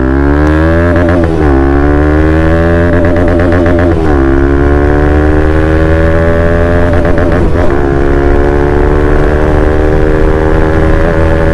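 Bajaj Pulsar NS200 single-cylinder engine, heard through an aftermarket Akrapovic exhaust, accelerating hard under load. The revs climb and drop sharply at upshifts about a second and a half in and again about four seconds in, then pull steadily higher in the next gear.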